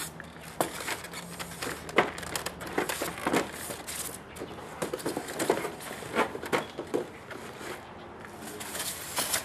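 Cardboard box and white foam packaging being handled: irregular taps, knocks and rubbing as the foam insert is lifted out and the box is set down on the table.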